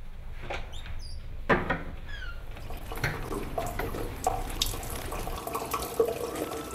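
A toilet door clunks open about a second and a half in, then water runs steadily in a tiled washroom.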